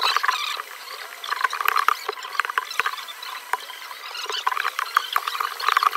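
Hobby knife blade scraping shattered iPhone back glass off the metal frame: a dense, uneven run of small scratches, clicks and crackles as glass fragments chip and flake away.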